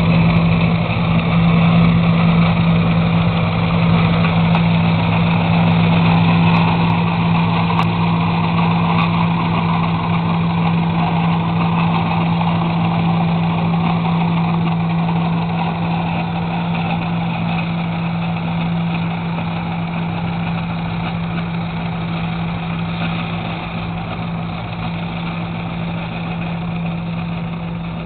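4-inch scale Foster steam traction engine running as it is driven, a steady hum with a strong low tone, growing slowly quieter as it moves away.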